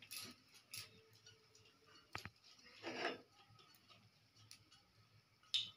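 A few faint, scattered clicks and a brief scrape of a metal spatula against a metal plate of fried fish, in an otherwise quiet room.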